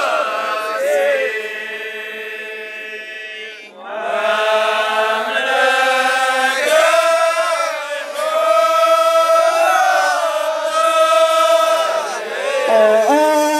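Male chorus of an Amazigh ahwach troupe chanting a tandamt refrain together, long held notes in phrases with short breaks between them.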